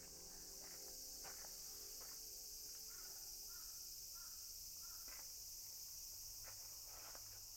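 Faint, steady, high-pitched drone of insects, with four short warbling notes about midway through and a few faint ticks.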